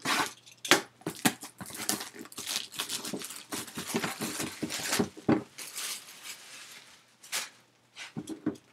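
Shrink-wrapped cardboard boxes being handled and moved about: a fast run of crinkling and rustling with small knocks, thinning out near the end.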